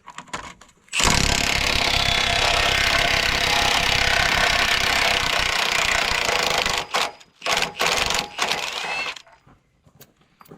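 Milwaukee 1-inch impact wrench hammering a 24mm track roller bolt loose: one long burst of about six seconds, then three short bursts as the loosened bolt is run out.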